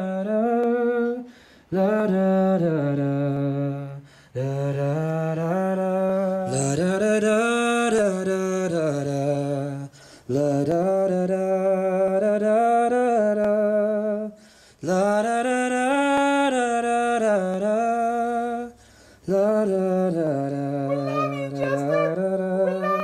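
A man singing a slow wordless melody in long held notes, in about six phrases with short breaths between, through a handheld dynamic vocal microphone and a PA speaker.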